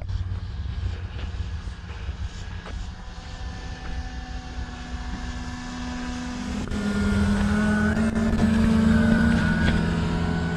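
Two electric Flex RV-8 60E model airplanes flying overhead together, their motors and propellers giving a steady hum at two slightly different pitches. The hum grows louder and peaks about eight seconds in, over a low rumble.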